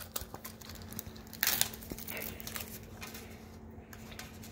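Plastic shrink wrap being peeled and torn off a metal tin, crinkling, with a louder burst of crinkling about a second and a half in.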